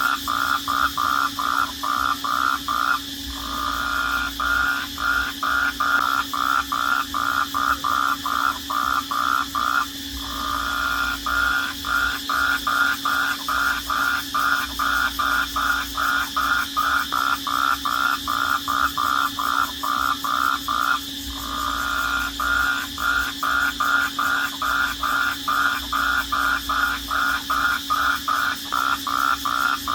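Night-time animal chorus: a loud chirping call pulsing about three times a second, with three brief breaks, over a steady high-pitched trill.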